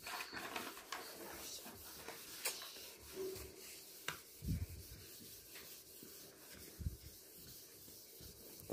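Handheld whiteboard eraser rubbing across a whiteboard, wiping off marker writing, with a few short knocks along the way.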